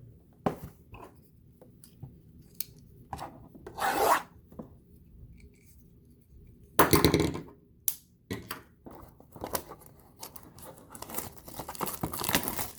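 A trading-card blaster box and its card packs being opened by hand: cardboard and wrappers rubbing and tearing, with scattered clicks, two louder rips about four and seven seconds in, and denser crinkling of pack wrappers near the end.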